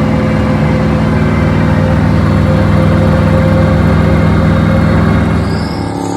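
A car engine idling loudly and steadily, its sound easing off about five seconds in.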